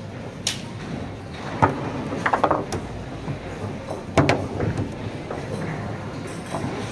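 Foosball table in play: the hard ball is knocked by the plastic players, and the rods clack and rattle. There is a sharp knock about half a second in, a quick flurry of knocks around two and a half seconds, and the loudest knock just after four seconds.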